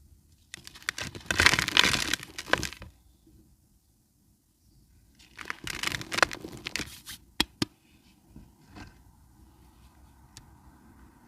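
Dry cement crumbling in two bursts of dense, crunchy crackling, the first louder, followed by a couple of sharp single cracks.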